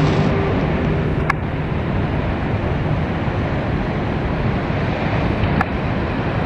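Ocean surf breaking, with wind rushing on the microphone as an even noise. Music fades out in the first second, and two short clicks come through.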